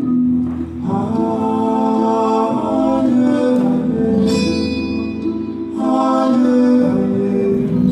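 Music with singing: long held sung notes moving in slow phrases.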